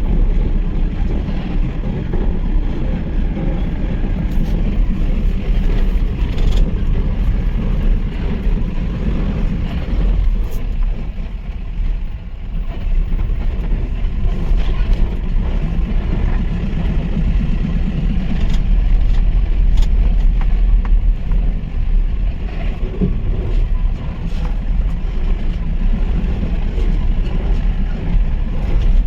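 Mahindra Pik-Up pickup truck driving, its engine running steadily with a deep, low sound mixed with road noise. A few sharp knocks or rattles are scattered through it, and the sound eases off briefly about twelve seconds in.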